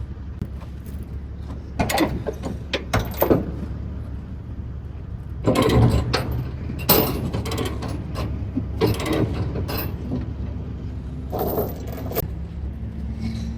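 Metal clanking and ratcheting in short bursts, typical of load-securement chains and ratchet binders being worked and tightened, over a steady low hum.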